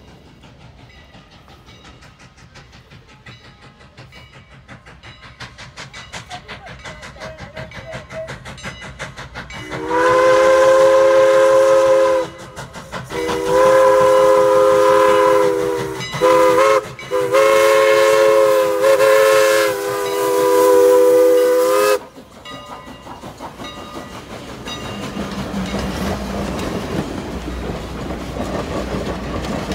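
Strasburg Rail Road steam locomotive No. 89 approaching a grade crossing with a faint rhythmic beat growing louder. Its chime steam whistle then blows the crossing signal, loud blasts in a long, long, short, long pattern. The passenger train follows, rolling past with a rising rumble and clickety-clack of wheels on rail joints.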